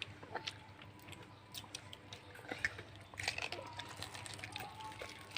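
Quiet eating sounds: scattered small clicks and taps of chewing, with a faint steady hum underneath.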